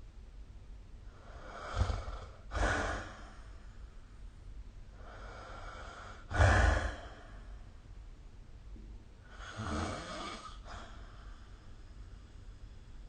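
A sleeping person snoring: a few separate, irregularly spaced snoring breaths, the loudest about six seconds in.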